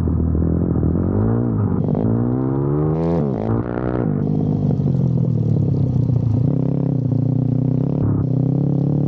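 Pit bike's single-cylinder engine revving up and down under riding, with a sharp rise and drop a few seconds in, then running at a fairly steady speed. It is running on a new carburettor and CDI.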